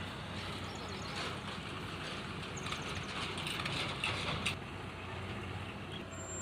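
Syan 998 combine harvester running steadily while cutting wheat: a continuous engine drone under the noise of the machinery, with a few brief rattles.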